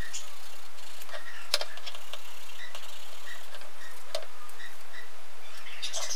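Small hand tool scraping the edges of a metal plate: scattered light clicks and short squeaks.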